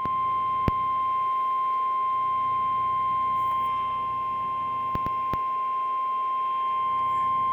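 NOAA Weather Radio warning alarm: a steady single-pitched 1050 Hz tone received over a weather radio, sounded for the weekly test of the alarm. A few faint clicks cut across it, one early and two about five seconds in.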